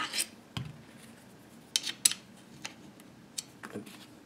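A handful of light, sharp metallic clicks and taps, the loudest about two seconds in: a steel scribe and the hammer and its pin knocking inside a Type 81 rifle's receiver as the hammer is lined up for its pin.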